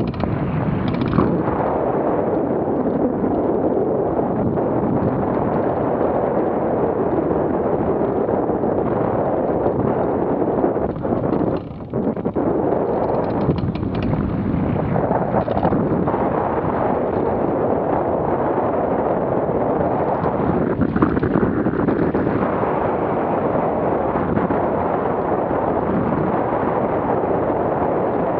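Steady rush of airflow over the microphone of a camera mounted on a hang glider's wing in flight. The wind noise is loud and rumbling, dropping briefly about twelve seconds in.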